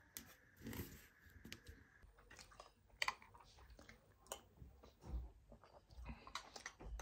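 Faint handling noises: soft crinkles, taps and clicks of things being picked up and set down, with a few sharper clicks about three and four and a half seconds in and low knocks near the end.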